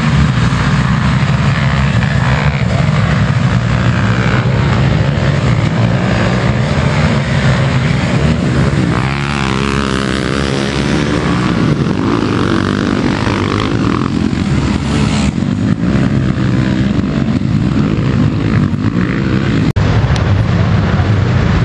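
A pack of youth ATVs racing, many small quad engines running together at full throttle, with the pitch rising and falling as riders accelerate and shift up the hill. The sound breaks off sharply for a moment near the end.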